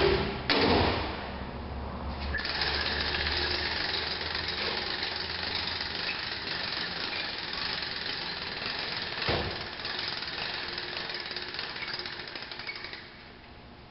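Catan tailgate lift's mechanism running steadily as it raises its loaded platform, a continuous mechanical clatter from about two seconds in that stops near the end. Two sharp knocks come just before it starts.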